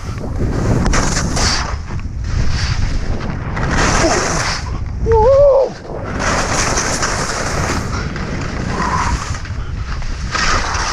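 Skis carving down icy snow: the edges scrape in long hissing sweeps, turn after turn, while wind buffets the microphone with low thumps. A short rising-and-falling vocal call comes about halfway through.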